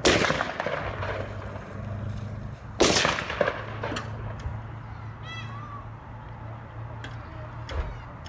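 Gunshots from an automatic rifle, fired singly, each crack trailing off in an echo. A loud shot comes at the start, another about three seconds in with a couple of lesser cracks after it, and fainter shots come near the end.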